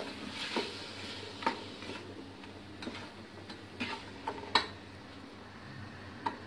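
A spatula stirring diced potatoes, carrots and peas in a cooking pot, with irregular scrapes and knocks against the pot, over a faint sizzle of the vegetables frying in oil.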